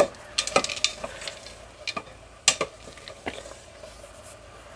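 Silicone spatula stirring chocolate chips into sweetened condensed milk in the stainless steel top pot of a double boiler, with irregular scrapes and taps against the pan, loudest at the start and about two and a half seconds in.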